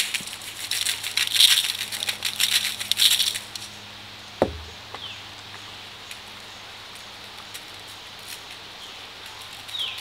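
Crackling rustle for about three and a half seconds, then a single short knock with a quickly falling pitch, over a faint steady hum.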